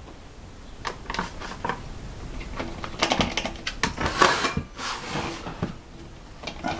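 Irregular clicks, taps and rattles of hands taking knobs and switches off a steel VFD enclosure and handling its wiring. A short scrape comes about four seconds in as the plastic-cased Mitsubishi E500 VFD is pushed across the wooden bench.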